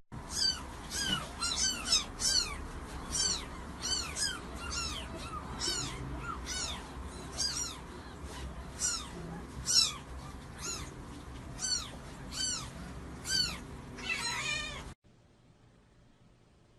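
A cat mewing over and over: short, high calls that each rise and then fall, about one or two a second, stopping abruptly near the end.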